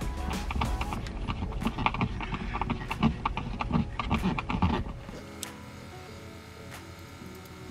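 Irregular clicks and hollow knocks of tools and hands working on car interior plastic trim. They stop suddenly about five seconds in, leaving a faint steady hum.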